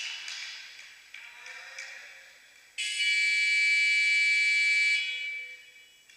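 Volleyballs being struck, a few sharp hits echoing in a sports hall, then about three seconds in a loud, steady buzzer-like signal tone sounds for about two seconds and dies away in the hall's echo, marking a stop in play.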